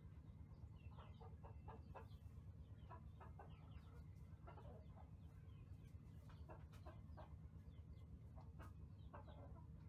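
Faint short animal calls, many in quick scattered succession, over a steady low hum.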